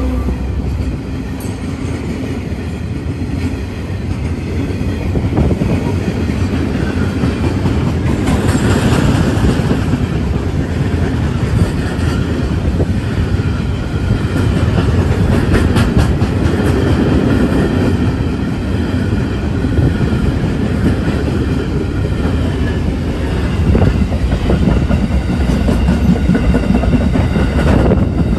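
A train running on the rails: a steady, loud running noise with scattered clicks of wheels over the track.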